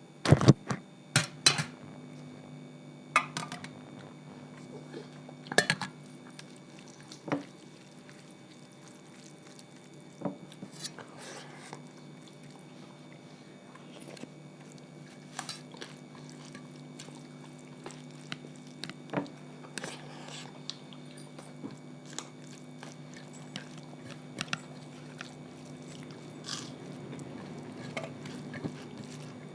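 People eating a meal of rice, dal and roti quickly: chewing and mouth sounds with sharp clinks of plates and cutlery, loudest and most frequent in the first two seconds. A steady low hum runs underneath.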